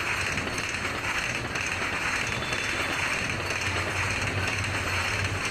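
Train 18 electric multiple-unit trainset passing close at high speed: a steady rush of wheel and bogie noise on the rails.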